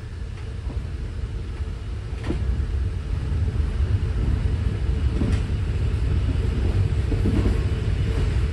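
Passenger train running along the track: a steady low rumble that grows somewhat louder about three seconds in, with a couple of sharp clicks.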